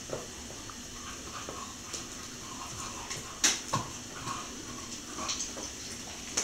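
Cocker spaniel chewing a pork marrow bone: scattered clicks and knocks of teeth on bone, the loudest a sharp knock about three and a half seconds in.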